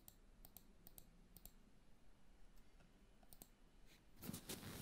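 A handful of faint, irregular computer mouse clicks over near silence. Near the end a short, louder rustling noise comes in.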